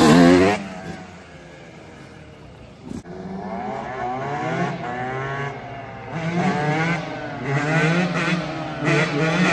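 Motorcycle engine revving: a rev dies away as the sound begins, then, after a quieter stretch, repeated throttle blips rise and fall from about three seconds in.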